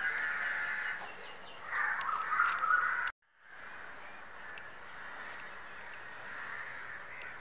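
Bird calls in two bouts over the first three seconds, then the sound cuts out briefly and a faint steady outdoor background follows.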